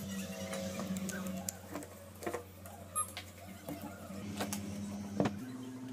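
Clicks and light metallic taps as an angle grinder's metal gear head is handled and fitted onto its motor housing, over a low steady hum that steps up in pitch about five seconds in.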